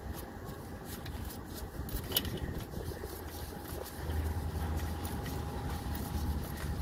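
Small hand wrench tightening a sensor mounting bolt: faint metallic clicks and scrapes over a steady low hum, which grows stronger about four seconds in.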